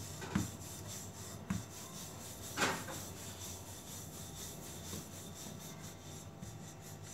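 Wooden rolling pin rolling sugar-filled paratha dough back and forth on a rolling board, a steady rubbing with a few short knocks; the loudest knock comes about two and a half seconds in.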